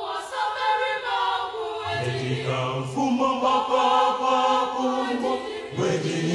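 Voices singing long held chords together, choir-style and without drums, as a programme's opening theme; a lower voice joins about two seconds in.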